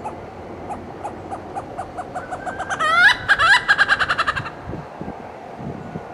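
Malabar grey hornbill calling: a series of short notes that speeds up and grows louder, rising into a rapid laughing run about three seconds in, then stopping a second and a half later.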